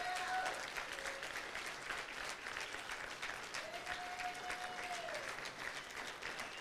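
Congregation applauding: a steady round of many hands clapping.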